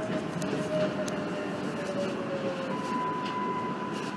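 Subway train running, heard from inside the front car: a steady rumble with a motor whine that slowly falls in pitch and fades, then a steady higher tone that comes in about three seconds in, and a couple of sharp clicks.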